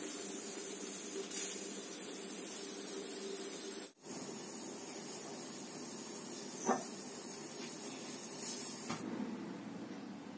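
Pressure cooker on a gas stove, steam hissing steadily from its weight valve while dal cooks inside. One short knock about two-thirds of the way in, and the hiss stops about nine seconds in.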